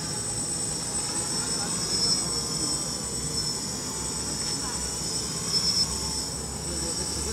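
Baby Widow Maker quadcopter's brushless motors and propellers buzzing steadily in flight, with a high, steady whine over it.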